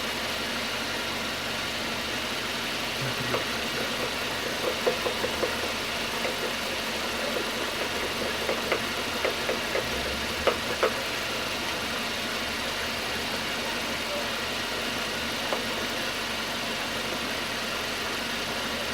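Citroën C4 2.0 engine idling steadily and smoothly, running 'sereninho' with its cylinder head freshly repaired. A few light clicks come through about a third of the way in.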